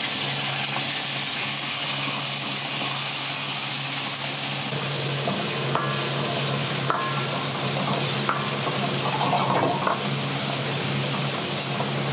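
Garlic and pieces of meat stir-frying in a steel wok: a steady sizzle as a metal ladle stirs and scrapes, with a few short clinks of ladle on wok from about halfway. A steady low hum runs underneath.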